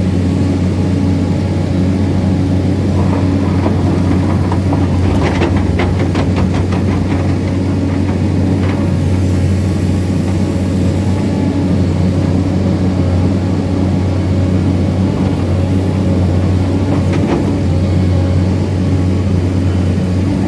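Excavator's diesel engine running steadily with a deep drone. A rapid run of knocks comes about five to seven seconds in, and another single knock comes later.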